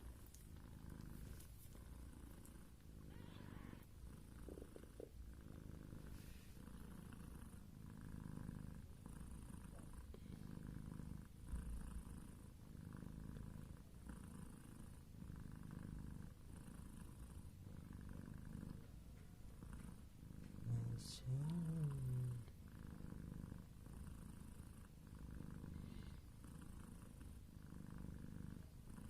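Cat purring steadily, the low rumble swelling and easing with each breath, typical of a mother cat nursing her newborn kittens. About two-thirds of the way through, a brief louder low call rises and falls in pitch.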